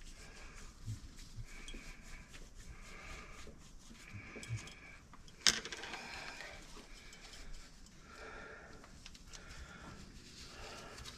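Rhythmic squeaky rubbing strokes from scrubbing the drain-trap slip nuts clean by hand, with one sharp click about halfway through.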